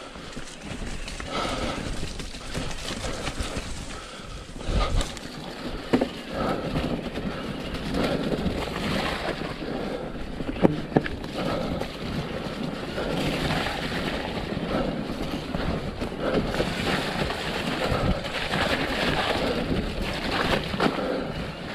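Mountain bike running fast downhill over a muddy forest trail: tyres rolling through mud and dirt, the bike rattling over rough ground with wind on the microphone, and sharp knocks from bumps about five, six and eleven seconds in.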